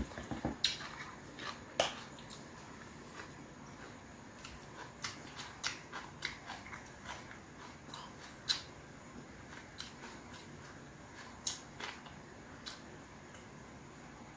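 A person chewing bibimbap mixed with young radish kimchi close to the microphone: scattered small crunches and wet mouth clicks at an irregular pace. In the first couple of seconds a few sharper clicks come from a spoon against the stainless steel mixing bowl.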